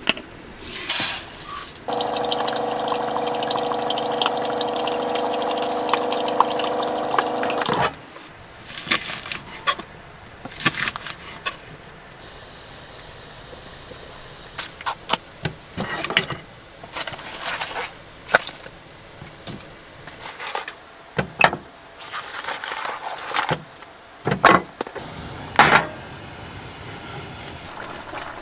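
Liquid poured into a cooking pot for about six seconds, then scattered knocks, clicks and rustles of cookware being handled.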